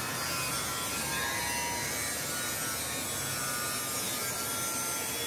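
Steady background whir of running machinery, even in level throughout, with faint high hum tones and no knocks or clicks.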